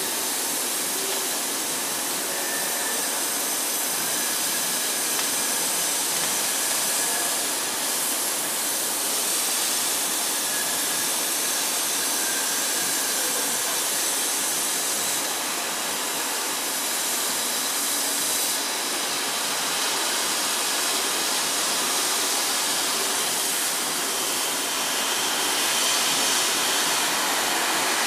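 Plasma torch of a CNC plasma cutting machine cutting through a metal plate: a steady hiss from the arc and gas jet.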